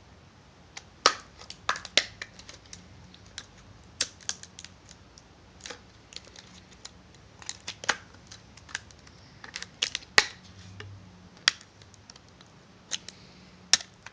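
Thin plastic snap-on back cover of a Samsung Galaxy S3 being pried off the phone: a long series of sharp, irregular plastic clicks and snaps as the clips let go, loudest about a second in, two seconds in and around ten seconds in.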